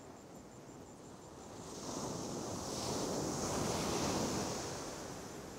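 Ocean surf washing up a sandy beach: a wave's wash rushes in about two seconds in, builds, and fades away near the end.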